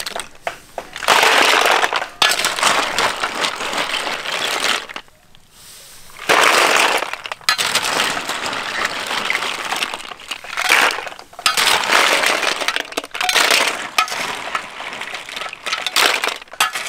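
Snail shells clattering against a metal wok and a wire skimmer as a heap of cooked snails is stirred and scooped out, in bursts of dense rattling with a short lull about five seconds in.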